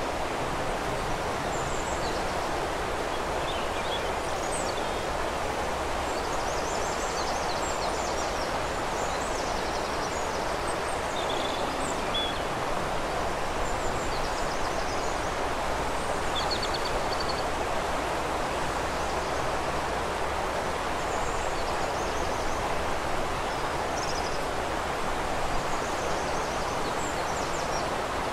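Steady rush of flowing river water, with small songbirds singing over it in scattered short, high chirps and trills every few seconds.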